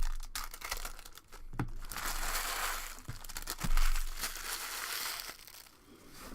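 Foil wrappers of trading-card packs crinkling and tearing, densest through the middle, with a few sharp knocks and one heavier thump.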